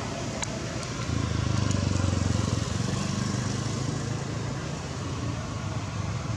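A motor vehicle's engine running with a low, pulsing hum that gets louder about a second in and eases off after a couple of seconds, still audible.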